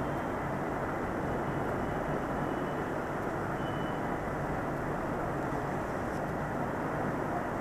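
Steady background noise, an even hiss and rumble with no speech, holding one level throughout. A faint high tone comes and goes a couple of seconds in.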